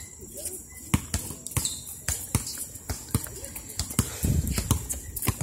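Basketball dribbled and bouncing on an outdoor concrete court: a string of sharp, irregular thuds, with voices faintly behind.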